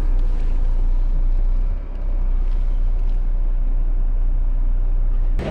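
Heavy goods vehicle's diesel engine running, a steady low rumble that cuts off abruptly near the end.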